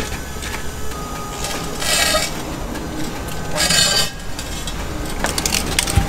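A cut concrete slab being levered and shifted with a steel pry bar: two short gritty scrapes about two and four seconds in, then quick metal-on-concrete clinks near the end, over a steady low engine hum.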